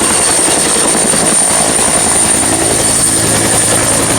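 Helicopter sound effect: a steady rotor and engine noise with a thin high whine running over it. It starts suddenly, at full loudness.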